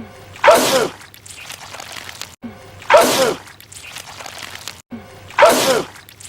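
A man sneezes a wet sneeze that sprays goo, three times about two and a half seconds apart. Each sneeze is a sudden loud burst with a voiced sound sliding down in pitch, followed by quieter noise.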